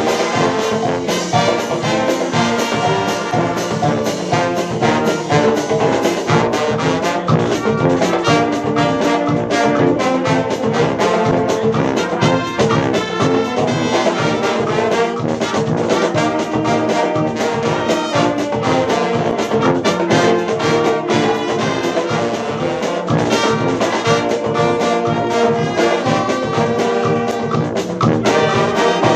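Dweilorkest (Dutch street brass band) playing live: trumpets, trombones, saxophones and sousaphone over snare and bass drums keeping a steady beat.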